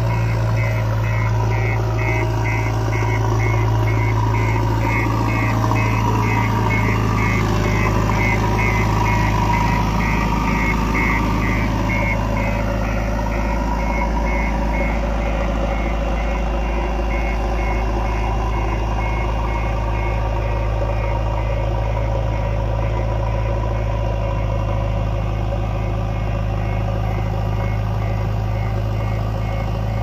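JCB 3DX backhoe loader's diesel engine running steadily under load as the front bucket pushes soil, with a rapid repeating high beep over it.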